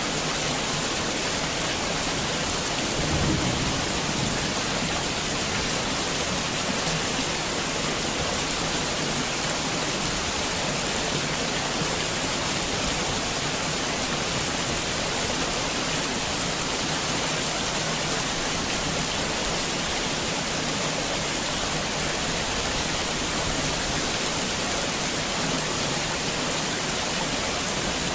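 Heavy rain falling steadily, a dense even hiss. About three seconds in there is a brief low rumble.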